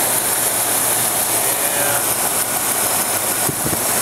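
2004 Ford Excursion's gasoline engine idling, heard up close under the open hood as a steady, hissy running noise.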